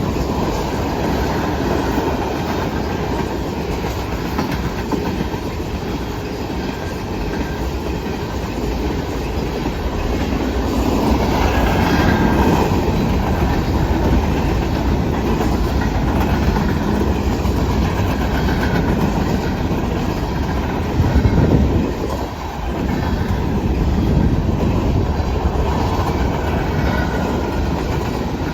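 Freight cars of a Norfolk Southern manifest train rolling past, a steady rumble with wheels clacking over the rail joints, briefly louder about 21 seconds in.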